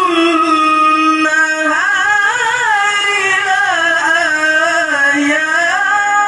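A male qari reciting the Quran in the melodic tilawah style, holding long high notes and winding them through ornamented turns, amplified through a microphone.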